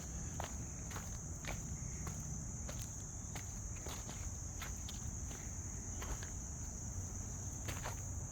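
Steady high-pitched insect chorus of crickets, with a person's footsteps walking at an uneven pace, about two steps a second.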